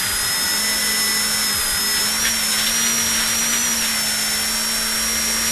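Rally car engine held at high revs, heard from inside the cabin, its note creeping slowly higher as the car accelerates along a straight, over a steady rush of tyre and gravel noise.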